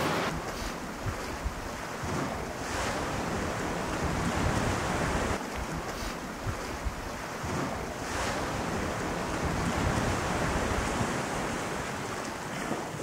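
Ocean surf washing against a rocky shore in repeated surges, with wind rumbling on the microphone.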